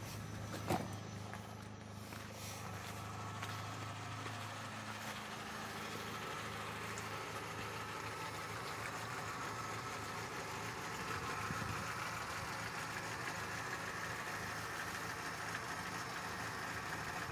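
Opel/Vauxhall Astra 1.4 petrol four-cylinder engine idling steadily after a cold start. About a second in there is a single sharp knock. The idle is heard at first as a low hum inside the cabin, then from outside at the front of the car, where it sounds brighter.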